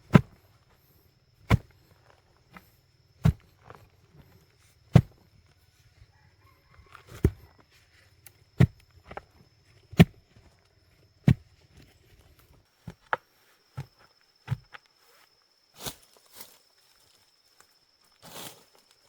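A series of sharp knocks, about one every second and a half, becoming sparser and more irregular after about twelve seconds, over a faint steady high-pitched tone.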